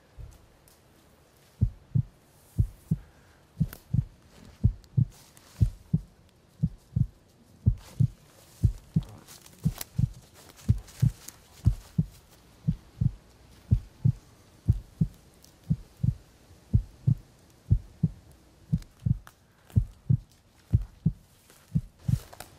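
Slow heartbeat: low paired thumps, about one beat a second, starting a couple of seconds in.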